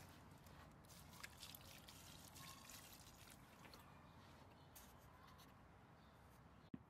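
Near silence: faint background hiss with a few soft, scattered ticks.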